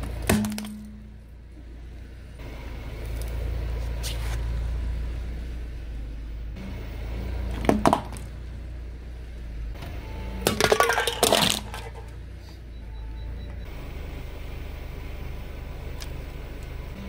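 Car tyre rolling over a small red plastic light on paving, cracking and crunching it: a sharp crack just after the start, another about eight seconds in, and a quick run of crunching cracks around eleven seconds, over the car's low engine rumble.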